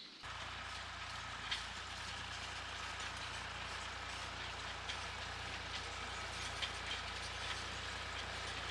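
Massey Ferguson 35 tractor heard from a distance, its engine running steadily with a low hum, with a few faint ticks over it.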